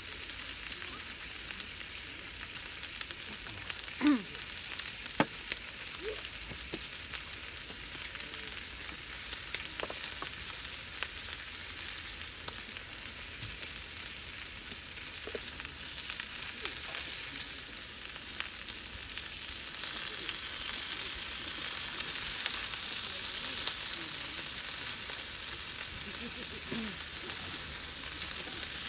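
Yakiniku meat sizzling in a pan on a portable camp gas burner: a steady frying sizzle that grows louder about twenty seconds in, with a couple of sharp clicks about four and five seconds in.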